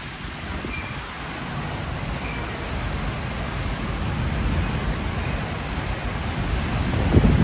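Heavy rain falling steadily as a dense hiss that slowly grows louder, with a sudden louder burst near the end.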